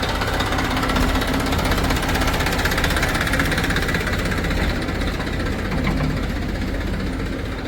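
Diesel engine of a JCB 3DX backhoe loader running steadily with a knocking rattle, working harder in the middle and easing off in the last few seconds.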